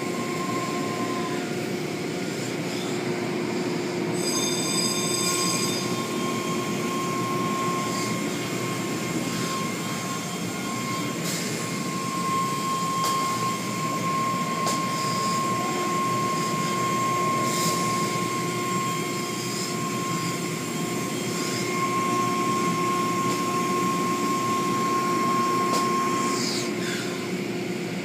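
Automatic tunnel car wash running: water spraying and cloth curtains and brushes sweeping over a car, over the steady hum of the machinery. A thin, steady whine from the equipment comes and goes, with a few sharp knocks.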